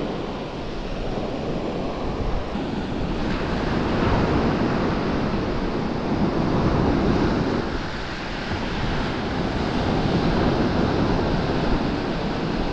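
Surf breaking and washing up a shingle beach, swelling and easing every few seconds, with wind noise on the microphone.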